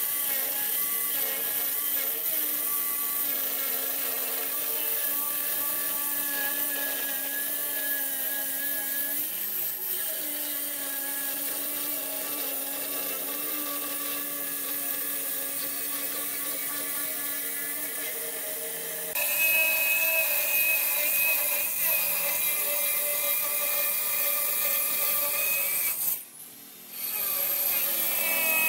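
Handheld electric stone cutter with a diamond blade running steadily as it cuts through a granite slab: a steady motor whine over grinding. About two-thirds through it jumps louder and higher, and near the end it drops out for about a second before resuming.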